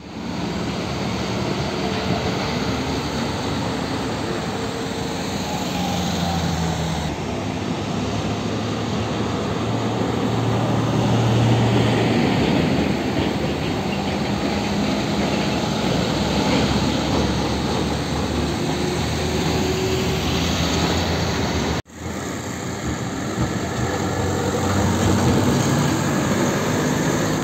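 Diesel tanker trucks passing close by on a road: engine running and tyre noise. The sound changes abruptly twice as one truck clip cuts to the next.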